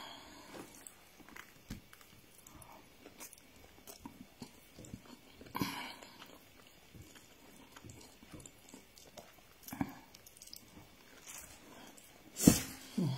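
A person chewing rice eaten by hand: irregular small clicks and mouth smacks, with a louder burst about halfway through and again shortly before the end.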